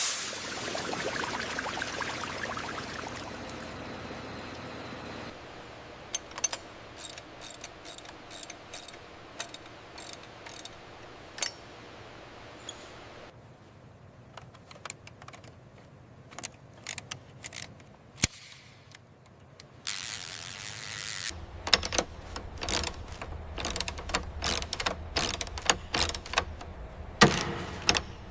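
Workshop tool and mechanism sounds. A hiss fades away over the first few seconds, then come irregular sharp clicks and ticks like a ratchet. About three-quarters of the way in, a low steady hum starts under a dense run of clicks.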